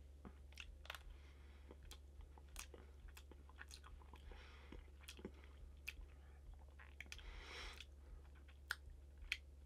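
Faint chewing of a Jaffa Cake, with scattered small mouth clicks.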